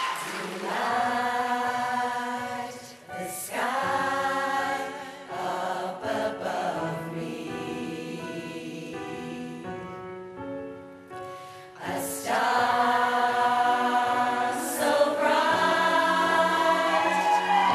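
Women's choir singing in harmony, holding long chords. It sings more softly for a few seconds in the middle, then swells louder about twelve seconds in.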